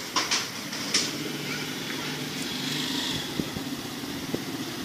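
A few sharp taps in the first second, then the steady low hum of an engine running, over background street noise.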